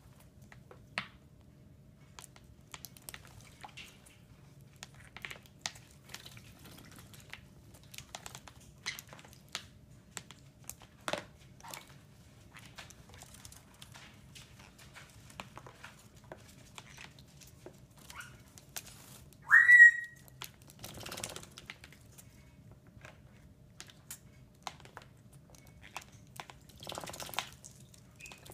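Baby green-cheeked conures bathing in a shallow plastic toy pool: scattered small splashes and clicks, one short, loud, upward-sliding whistled call about two-thirds of the way through, and two brief flurries of splashing, one just after the call and one near the end.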